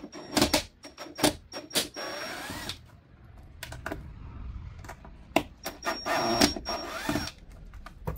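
Two screws being removed from the housing of a JBL PartyBox Stage 320 party speaker: sharp clicks and scraping from the screwdriver and screws, in two spells with a pause between.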